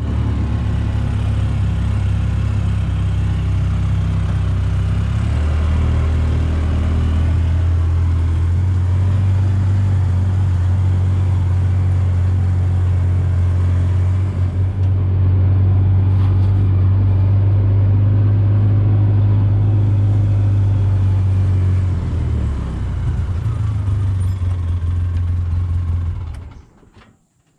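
Polaris Ranger side-by-side's engine running as it drives, a steady low drone whose pitch drops and rises a few times with the speed. It cuts off near the end.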